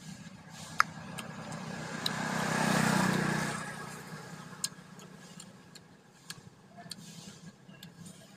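A motor vehicle passing by: its engine hum and road noise swell to a peak about three seconds in and fade away. Several sharp clicks and crunches come from fried chicken being bitten and torn apart by hand.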